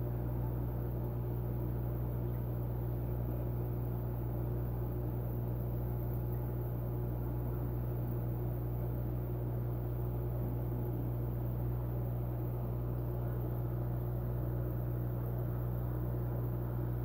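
Aquarium pump humming steadily, with water bubbling from its stream of air bubbles.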